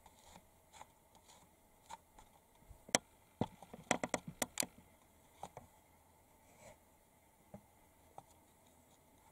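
Numbat scratching in dry soil and leaf litter: a quick flurry of sharp scrapes about three to five seconds in, with a few scattered small scratches around it.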